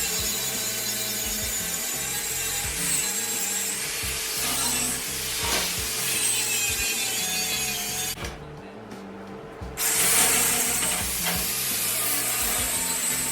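Grinder grinding a steel grill frame, its high whine dipping and rising as it is pressed into the metal. The high hiss of the grinding drops out for about a second and a half just past the middle, then comes back.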